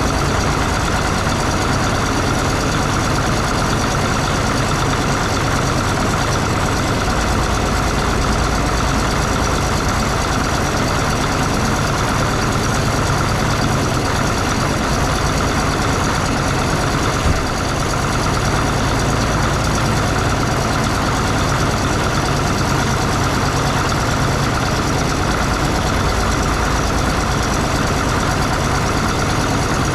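Caterpillar D6 bulldozer's diesel engine idling steadily, with a single short knock a little past halfway through.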